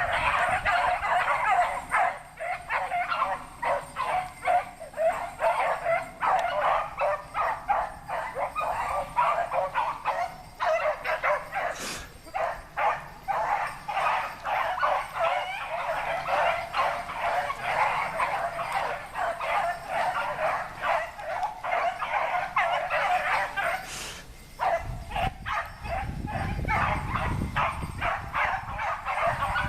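A pack of rabbit hounds baying continuously in full cry, many voices overlapping as they run a rabbit's trail. A low rumble comes in near the end.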